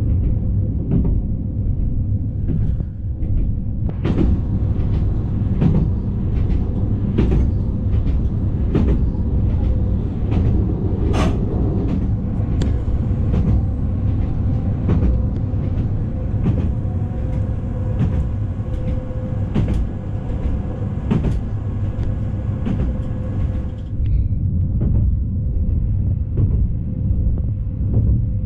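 Newag Impuls 2 electric multiple unit running at speed, heard from inside the passenger car: a steady low rumble with a faint steady hum, and frequent sharp clicks and knocks from the wheels on the track.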